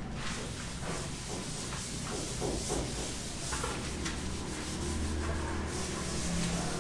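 Steady rubbing noise, as of something being worked against a surface, with a low hum underneath.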